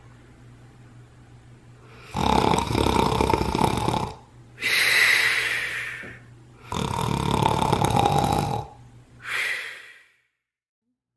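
A person snoring: two long, loud rasping snores on the in-breath, each followed by a shorter hissing breath out. It cuts off suddenly near the end.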